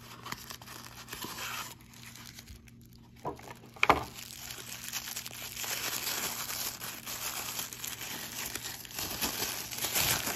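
White tissue paper crinkling and rustling as it is unwrapped by hand, continuous from about five seconds in. Before that comes quieter handling of a small cardboard box, with one sharp knock about four seconds in.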